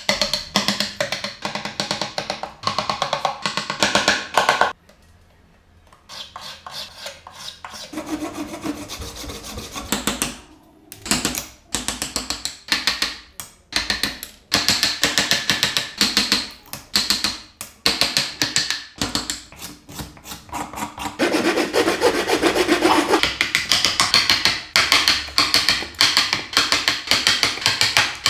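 Chisel and gouge struck with a mallet to carve wood: rapid repeated sharp taps, several a second, with scraping as chips are pared away, broken by two short pauses.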